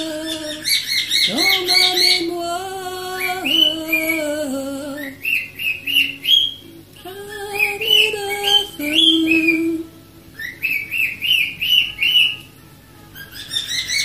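Cockatiel whistling and chirping in bursts of quick repeated high notes, over a lower tune of long held notes that step up and down.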